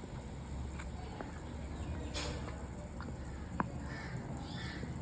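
A few light clicks and taps of utensils in a bowl as herbal powders are mixed, over a low steady hum. There is a short scuffing burst about two seconds in and a sharper tap a little later, and a bird calls a couple of times near the end.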